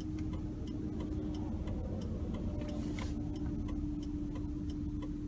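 Car turn-signal indicator ticking steadily, about three ticks a second, over the low steady hum of the car waiting at a light.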